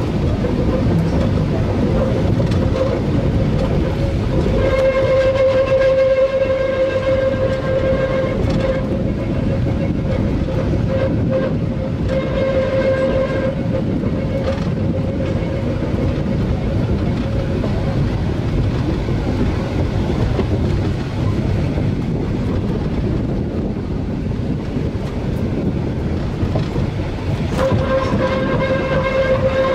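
Electric rack-railway (cogwheel) train on the Rigi running along the track, with steady rumbling running noise. A high, steady whining tone comes in for a few seconds at a time, three times.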